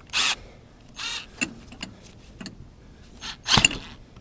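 Short metallic rattles and clicks at irregular intervals, loudest near the end, from handling a drill and fitting it to the riding lawnmower's engine to crank it.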